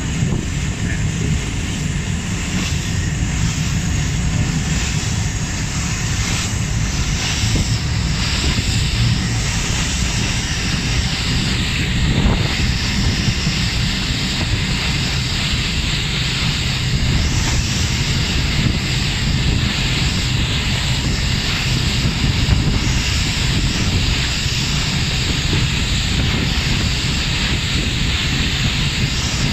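Engines of a passenger ferry running steadily under way, a constant drone mixed with the rush of water along the hull.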